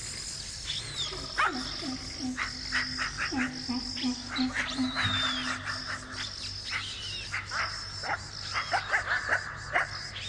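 Night ambience of insects shrilling with a steady high drone, and frogs croaking in short repeated calls.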